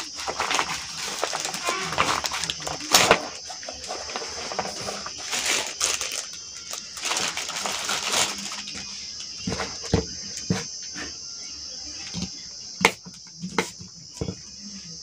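Plastic wrap and a nylon carry bag rustling and crinkling as a tripod is pulled out and handled, with scattered sharp clicks and knocks of the tripod's parts.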